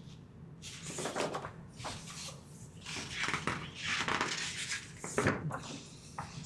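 Paper rustling as the pages of a board game rule book are handled and turned, several rustles in a row.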